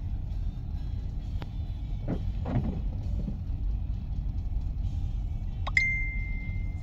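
Low steady rumble of a loaded freight train of trash hopper cars rolling past, heard from inside a car. Near the end there is a sharp click, then a high steady squeal lasting about a second.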